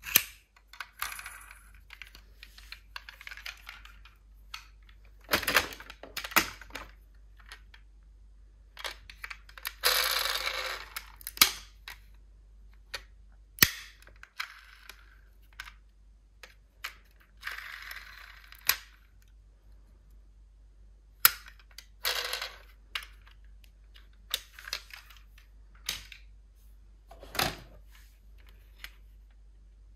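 Small diecast toy cars clinking and clattering as they are handled and set down, with irregular sharp metallic clicks and short scraping sounds.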